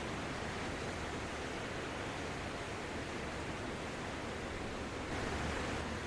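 Sea surf washing up onto a sandy beach: a steady rushing hiss that swells briefly near the end as a wave breaks.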